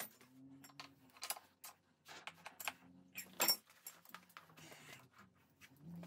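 Metal hand tools and wheel parts clinking and rattling in a string of short sharp knocks, with one louder clank about three and a half seconds in.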